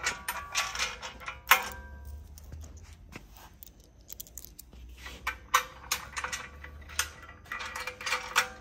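Small metal hardware clinking and jingling: steel washers and nylock nuts handled in the hand and bolts set into a metal bike-rack channel, with a sharp clink about one and a half seconds in. The clinks come in clusters near the start and again through the second half, quieter in between.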